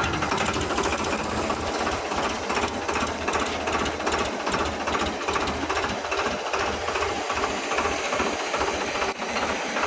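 Tractor diesel engine running steadily with a fast, even knock while it works the front-loader hydraulics to raise a bucket of coconut husks.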